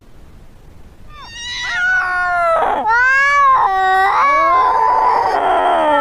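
Cat meowing and yowling in a run of drawn-out calls that slide up and down in pitch, starting about a second in and ending in one long held call.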